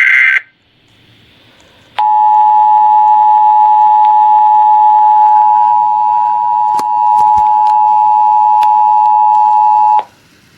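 The last fraction of an Emergency Alert System digital header burst (a short harsh screech), then, after a pause of about a second and a half, the EAS two-tone attention signal sounding steadily for about eight seconds before it cuts off, heard over broadcast radio. It marks the start of an emergency alert, here a severe thunderstorm warning.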